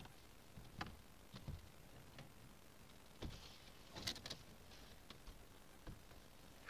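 Scattered light knocks, taps and rustles of corrugated plastic (Coroplast) body panels as the velomobile's shell is closed around the rider, busiest about halfway through.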